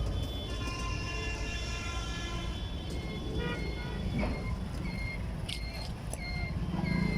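Road traffic running steadily, with vehicle horns sounding: a long blast over the first few seconds, then several short toots.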